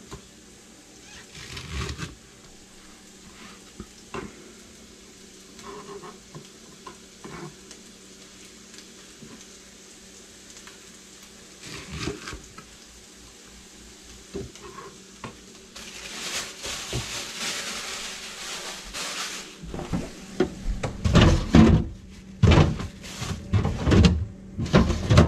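Chef's knife slicing green onions on a plastic cutting board, with occasional soft taps. Past the middle a steady hiss lasts a few seconds, and near the end refrigerator handling takes over: loud thumps, knocks and rattles from the door and a drawer.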